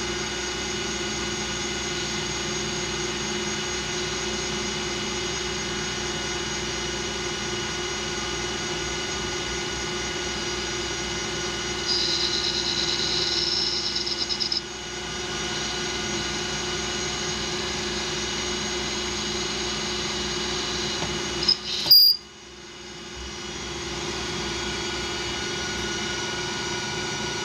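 Metal lathe running steadily with a motor and gear whine while turning an aluminium part. A higher-pitched cutting tone comes in for a couple of seconds near the middle. A sharp clack about three-quarters through is followed by the machine sound dipping and building back up.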